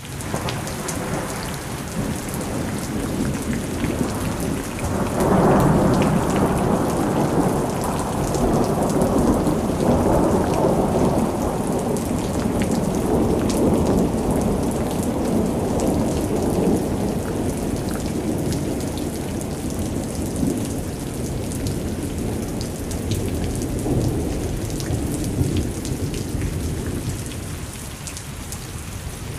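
Thunderstorm: steady rain with a long rolling rumble of thunder that swells about five seconds in and slowly dies away toward the end.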